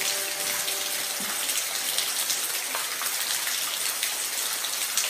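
Steady rain falling, a dense even hiss with many individual drops striking close by.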